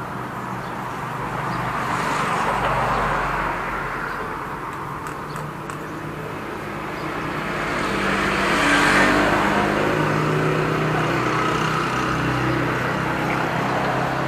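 Motor vehicles passing on a road, with traffic noise swelling twice: once about two seconds in, and louder near the middle.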